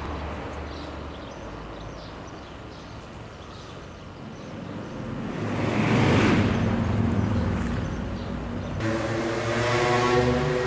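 Red-and-cream diesel railcar passing close, its engine and wheels on the rails swelling to the loudest point about six seconds in. From about nine seconds in, a railcar's engine drones steadily as it runs along the line.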